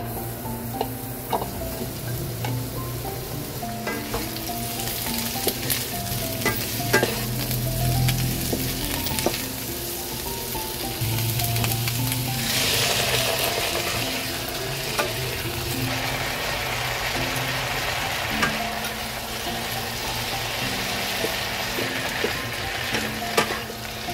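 Sliced vegetables sizzling in hot oil in a nonstick wok while being stirred, with scattered clicks of the spatula against the pan. About halfway through, water is poured in and the sizzle turns into a louder, hissier spurt that then settles into a steady frying hiss.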